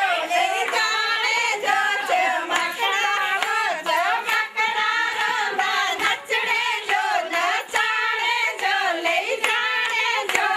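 A group of women singing a Pahari (Kangri) wedding folk song together for the Jhamakda dance, with hand clapping throughout.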